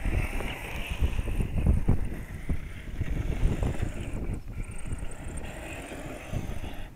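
Gusty wind buffeting the microphone, with the whine of a scale RC crawler's electric motor driving up the sand, the whine strongest in the first second or two.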